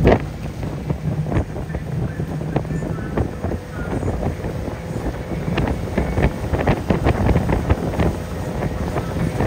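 Motorboat engine running while towing a water skier, with wind buffeting the microphone and the hiss and splash of wake and spray.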